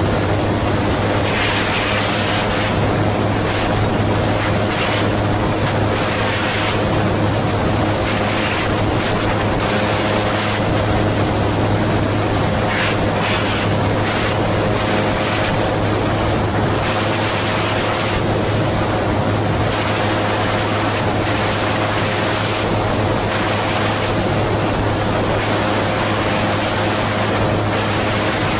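Gyroplane in flight: the steady drone of its engine and propeller, with a constant hum, and wind rushing over the microphone in gusts.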